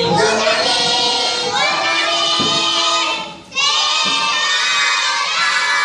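A class of young children answering together in a drawn-out, sing-song chorus, with a short break about three and a half seconds in.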